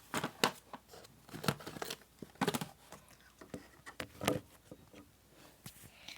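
Handling noises close to the microphone: about half a dozen short rustles, scrapes and light knocks, separated by quiet gaps.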